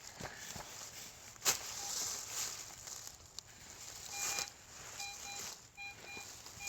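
A shovel scraping and crunching into dirt and roots as a hole is dug, with a sharp knock about a second and a half in. From about four seconds in, a metal detector gives a series of short, high beeps.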